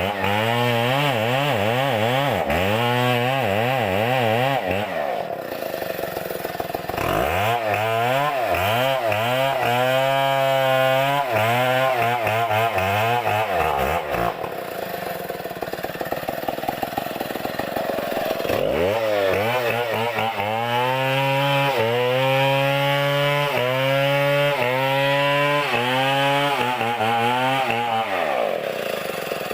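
Two-stroke chainsaw cutting into a coconut palm trunk, its engine pitch wavering up and down under load. It eases off twice, about five and fourteen seconds in, then revs back up into the cut.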